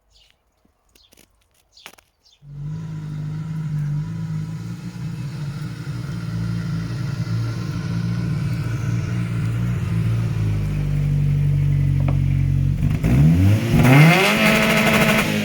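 Off-road car's engine running steadily, then revved hard near the end, its pitch climbing quickly.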